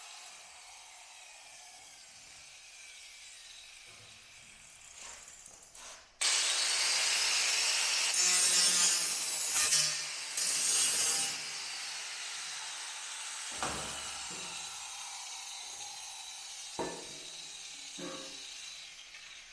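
Power cutting tool cutting through the steel body panel of a 1961 Willys to remove damaged metal: a loud, harsh cutting sound starts abruptly about six seconds in and runs for about six seconds with one short break. Afterwards the tool winds down with a falling whine, and a few sharp knocks follow near the end.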